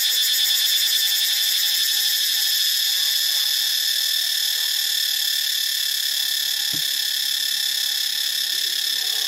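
Cicada singing a continuous, steady, high-pitched song.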